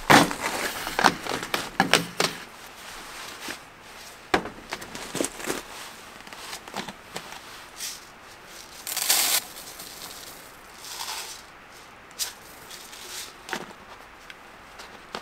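Glass jars and metal containers being handled on a stainless steel camp table: a busy run of clinks and knocks in the first two seconds, then scattered knocks, and a short rush of pouring liquid from a glass jar about nine seconds in.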